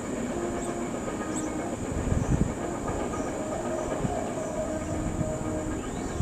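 Container-on-flatcar cars of a CSX intermodal freight train rolling past on the rails: a steady rumble with wheels clattering over the track and a few heavier thumps about two seconds in.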